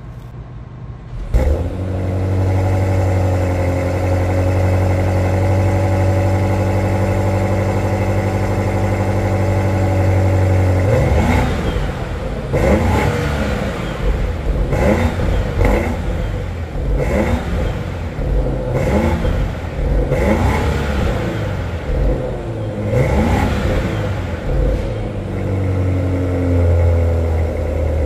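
BMW 760i's S68 4.4-litre twin-turbo V8 cold-started, heard from behind the exhaust tips: it fires about a second in with a loud flare, then holds a steady fast idle. About eleven seconds in it is revved in a string of quick blips, rising and falling, for some fourteen seconds, then settles back to idle near the end.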